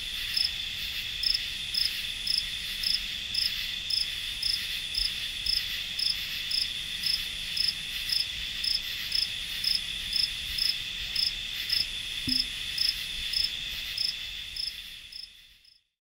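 Crickets chirping: one chirps in a steady, even rhythm of about two to three chirps a second over a continuous high insect trill. The sound fades out about a second before the end.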